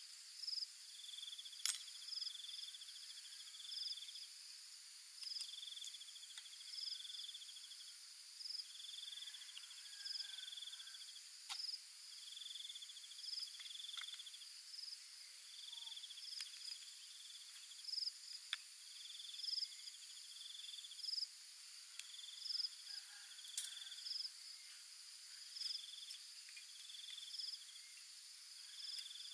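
Insects chirping: short trilled chirps repeating about once a second over a steady high-pitched insect drone, with a few sharp clicks now and then.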